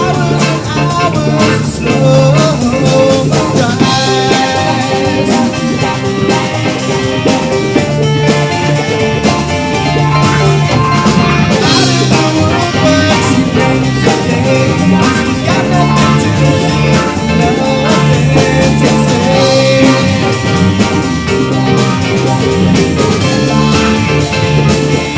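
Live rock band playing a song: electric guitars, bass guitar, keyboard and drum kit played together, loud and steady.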